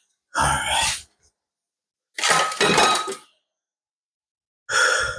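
Three loud metal-on-metal clanks, roughly two seconds apart, each with a short ring.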